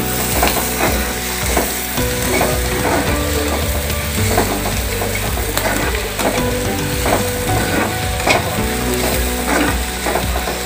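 Chopped onions and garlic sizzling in hot oil in a non-stick kadai, with a spatula stirring and scraping the pan in repeated strokes.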